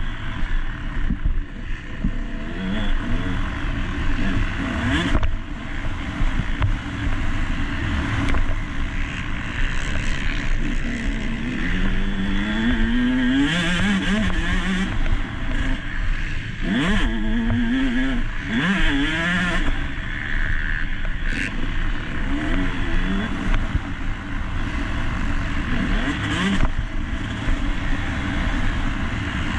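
Motocross bike engine under race throttle, its revs climbing and falling back again and again, with several sweeps rising in pitch.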